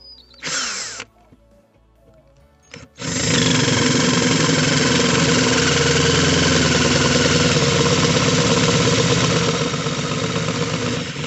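Cordless drill motor whining steadily under load for about eight seconds, starting about three seconds in, as it bores a bolt hole through the floor pan above the plastic fuel tank. A short burst of drilling comes just before.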